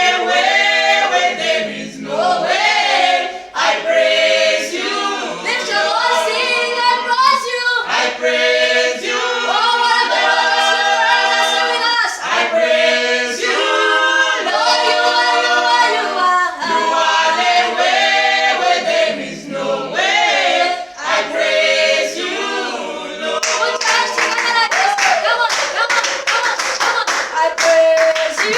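A gospel praise team singing together in harmony, without instruments. Near the end, rhythmic hand clapping comes in under the singing.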